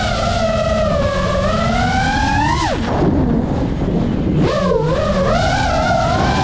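FPV quadcopter's motors whining, the pitch rising gently and then falling steeply about two and a half seconds in as the throttle is cut at the top of a climb. The whine stays low for a second or two, then jumps back up as the throttle comes on again.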